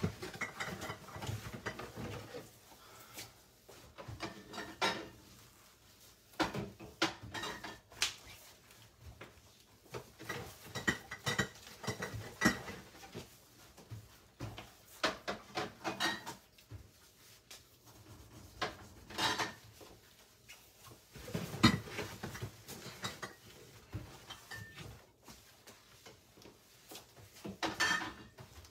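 Kitchen clatter: irregular knocks and clinks of dishes, pots and utensils being handled and set down on the counter and stovetop. One louder knock comes about three-quarters of the way through.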